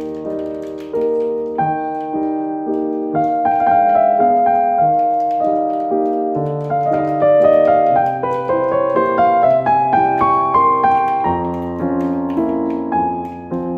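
Background piano music: a melody over changing bass notes.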